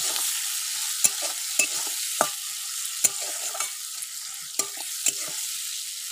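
Sliced onions sizzling in hot oil in a kadai, being fried to brown, with a spatula scraping and knocking against the pan in irregular strokes about one or two a second, fewer near the end.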